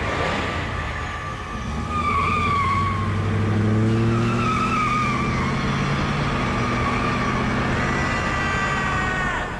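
Car engine revving up, rising in pitch, with tyres squealing in two wavering bursts; a man screams near the end.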